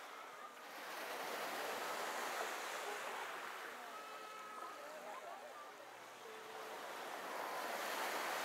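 Waterside ambience: a steady rushing hiss of wind and water that swells and eases twice, with faint distant voices.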